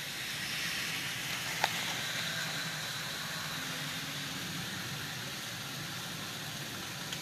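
Heavy rain pouring down, a steady hiss heard from inside through window glass, with one sharp click about a second and a half in.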